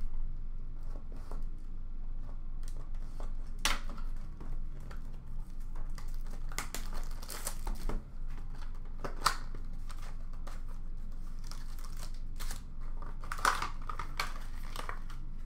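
Plastic shrink wrap and cardboard packaging of a trading-card box crinkling and tearing, in scattered short rustles and taps as it is unwrapped and opened. A steady low hum runs underneath.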